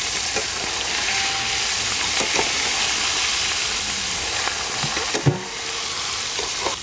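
Food frying in hot oil, a steady sizzle, with a brief knock about five seconds in.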